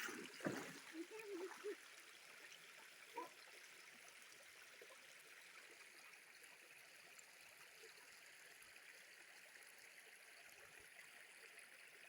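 Faint, steady rush of a shallow creek flowing, with a few brief knocks and a short bit of voice in the first two seconds.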